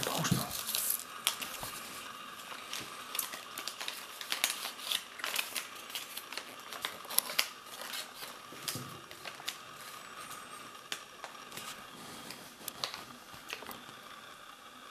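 Folded paper instruction leaflet rustling and crinkling as small hands unfold it, in scattered small crackles and clicks.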